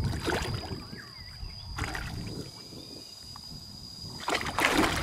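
Water sloshing and rumbling against a bass boat's hull while a hooked giant snakehead is played on the line beside the boat. It gets louder near the end as the fish comes up toward the surface.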